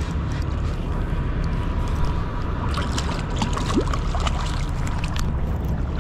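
Steady low drone of a passing barge's towboat engine, with a hooked walleye splashing and thrashing at the surface for a couple of seconds in the middle.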